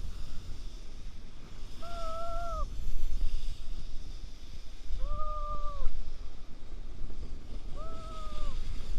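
Wind buffeting the microphone in a heavy low rumble, with a short, arched, even-pitched call or squeak repeated three times about every three seconds.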